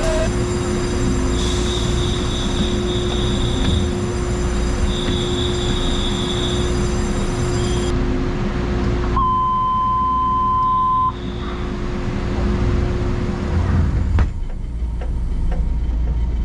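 Station departure bell ringing steadily over the EMU1200 train's low hum, stopping about halfway. Then a steady electronic beep for about two seconds, and near the end the train's door shuts with a single thump.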